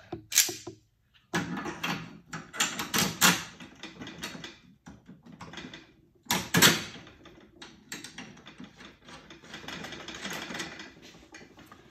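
Chrome- and zinc-plated Hurst shifter parts clicking and clacking against each other as they are handled and worked into place by hand, with a few sharper metallic clacks among irregular handling noise.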